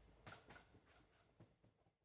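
Near silence: faint scattered ticks in low room tone, fading out near the end.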